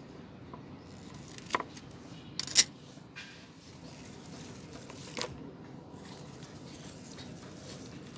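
Scissors snipping through onion leaves in a pot, a few sharp snips with the loudest about two and a half seconds in, and the leaves rustling between cuts.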